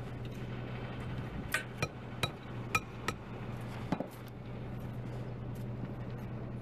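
A run of about six sharp metallic clinks, each with a short ring, over a steady low hum.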